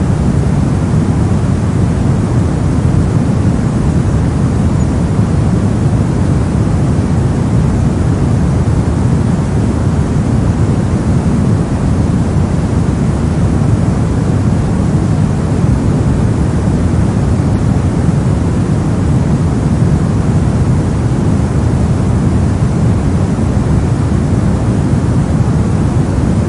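Steady soft noise, a deep even hiss weighted toward low pitches like brown noise, without any change.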